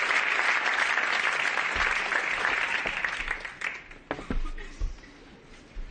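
Audience applause that dies away about three and a half seconds in, followed by a few separate dull knocks.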